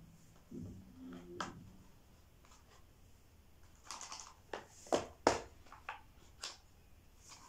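A smartphone's cardboard retail box and its inner packaging being handled and opened: soft scrapes and rustles, then a cluster of sharp clicks and taps from about four seconds in, the loudest two just after five seconds.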